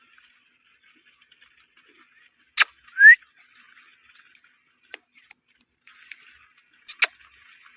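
Indian ringneck parrot chattering softly, with one short rising whistle about three seconds in. A few sharp clicks come through, the loudest just before the whistle and near the end.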